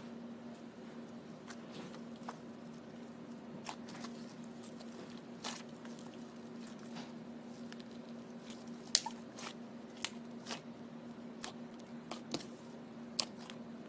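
Slime being pressed and squeezed by hand, giving faint, irregular small clicks and pops, the sharpest about nine seconds in, over a steady low hum.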